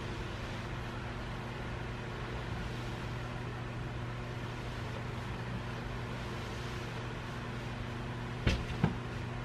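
Steady machine hum with a low drone and a hiss. Near the end, two sharp clicks about a third of a second apart from handling a camera on a small handheld tripod.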